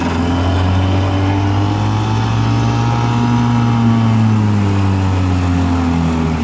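1958 Evinrude Fisherman 5.5 hp two-cylinder two-stroke outboard running in forward gear, pushing the boat along. Its speed climbs gently from about a second in and eases back down near the end.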